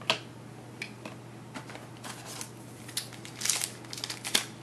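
Trading cards being handled and sorted by hand: a run of sharp clicks and rustles of card stock that grows busier in the second half, over a low steady hum.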